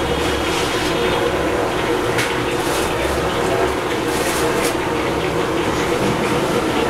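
Steady rushing noise with a low hum underneath, unchanging in level, with a few faint scrapes or clinks about two and four seconds in.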